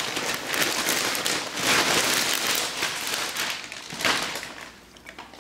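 Plastic wrapping being crumpled and rustled by hand: dense crinkling that stops about four and a half seconds in, leaving only faint clicks.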